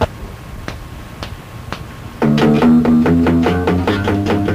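Rock band on a lo-fi cassette demo: a few sharp clicks about half a second apart over tape hiss, then about two seconds in the band starts loud, led by a guitar picking quick repeated notes.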